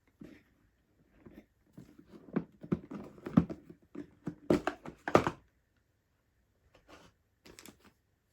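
Cardboard Lego box and its contents being handled and opened: a quick run of knocks, taps and rustling, the loudest about five seconds in, then a few faint taps near the end.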